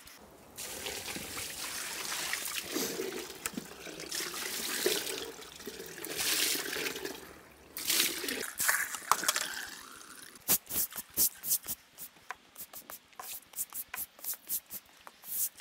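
Water poured from a bucket splashing onto a concrete path and running off for about ten seconds, followed by a stiff brush scrubbing the wet concrete in quick strokes, about three a second.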